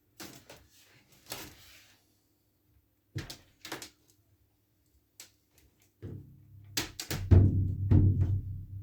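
A 21-inch maple/spruce gong drum is struck several times, giving a deep, low, ringing boom that swells over the last few seconds and then fades. A few light knocks of handling come before it.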